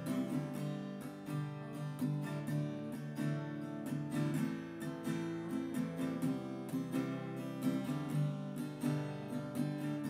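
Background music: acoustic guitar strumming and picking steadily.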